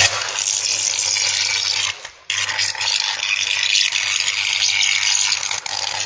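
Electrical arc from a short circuit in a burning wall-mounted electrical box, crackling and hissing loudly over a low hum as it throws sparks. It cuts out briefly about two seconds in, then strikes up again.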